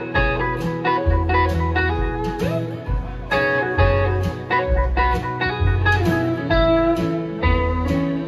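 Live country-rock band playing an instrumental break with no vocals: guitars over bass and a steady drum beat.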